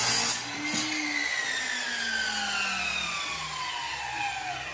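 Electric miter saw running at full speed for a moment, then switched off, its blade spinning down with a whine that falls steadily in pitch.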